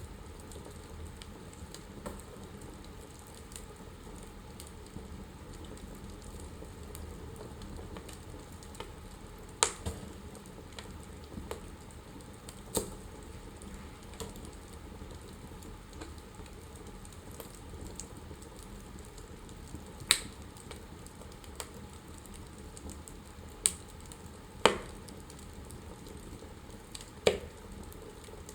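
Wood fire burning in a fireplace: a steady soft crackle and hiss, broken by about six sharp pops scattered through.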